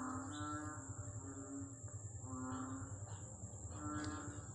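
Faint short animal calls repeating about once a second, over a steady high whine and a low hum.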